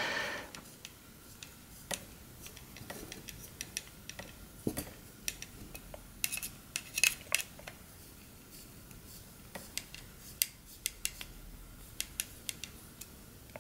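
Scattered light clicks and small metallic ticks of a hand tool tightening the bolts of a drone frame. The bolts are growing stiffer as the plates pull together.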